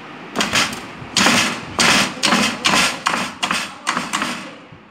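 A restrained rabbit struggling in a plastic tray, its feet scrabbling and thumping against the tray in about a dozen quick, loud scrapes that stop shortly before the end.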